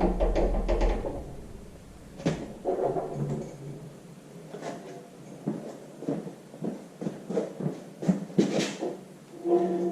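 Squeaks and creaks, with scattered metal knocks and clicks, from heavy tractor parts being shoved and worked into line as an engine is fitted to a transmission. The squeaking comes in short spells near the start, around three seconds in and near the end.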